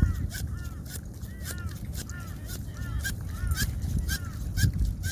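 Wacaco Nanopresso hand pump being worked in quick strokes to push hot water through the coffee, each stroke giving a short rising-and-falling squeak, about two a second.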